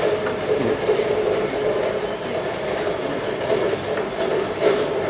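A steady machine hum holding two constant tones, with a couple of light clicks about three and a half and four and a half seconds in.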